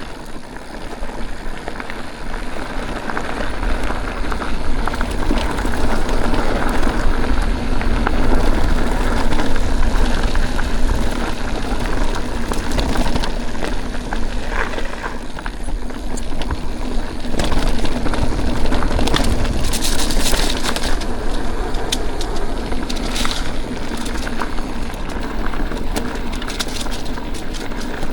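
Mountain bike tyres rolling and crunching over loose dirt and gravel, with a continuous low rumble and many sharp crackles and rattles as the bike bounces over the surface.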